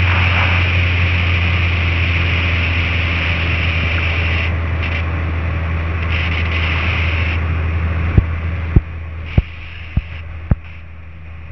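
Cessna 172P's four-cylinder Lycoming engine and propeller droning in the cabin, the sound dropping in steps as power comes back to descend for landing, with a sudden drop near the end. A row of sharp clicks, about two every second, begins in the last few seconds.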